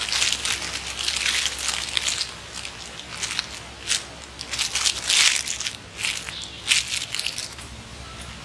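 Clear plastic packaging bag crinkling and crackling in irregular bursts as it is handled, dying down near the end.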